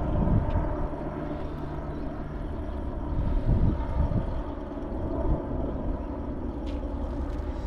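Steady low engine rumble with a faint even hum and a few soft knocks.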